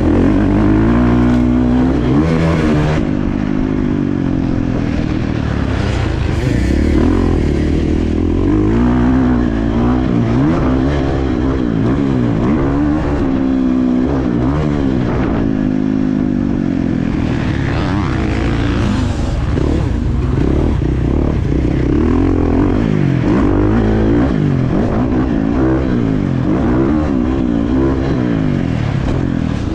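Dirt bike engine being ridden hard, its pitch rising and falling over and over as the throttle is worked and gears change.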